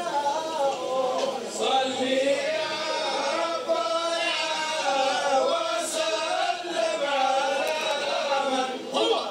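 Group of men singing and chanting together in a Libyan wedding zaffa, several voices overlapping, played back through a television.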